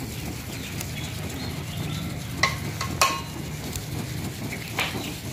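Cooking pan and utensils being handled: a few sharp metallic clinks with a short ring, two close together in the middle and one near the end, over a low steady rumble.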